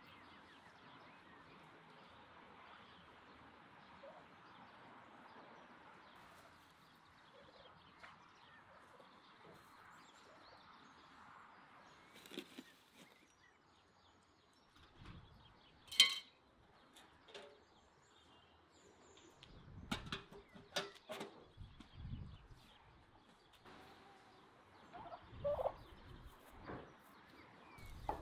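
Domestic turkeys calling, with scattered sharp knocks; one sharp knock about halfway through is the loudest sound.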